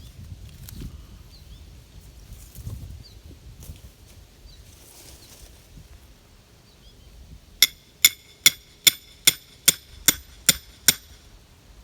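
Three-pound mini sledgehammer striking a steel rebar stake to drive it into the ground: nine quick ringing metal blows, about three a second, starting a little over halfway through. Before the blows, faint rustling.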